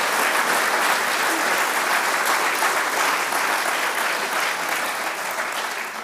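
Audience applauding, dying down near the end.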